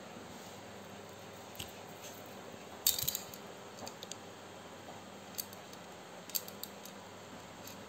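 Light clicks and small metallic ticks from hands working a crochet hook through yarn, with a brief jingling rattle about three seconds in, over a low steady hiss.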